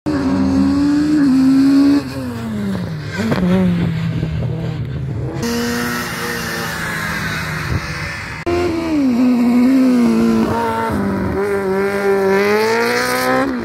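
Car engines running on a race circuit, revving up and down as the cars drive past, with the engine pitch rising and falling. The sound changes abruptly several times as short clips follow one another.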